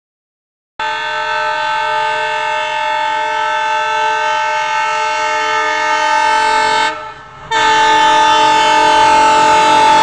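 Diesel locomotive's multi-tone horn sounding a long, steady blast, starting about a second in, breaking off briefly near the end and then sounding again.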